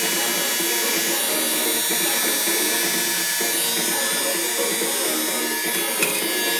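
Background music with a dense, buzzy electronic sound.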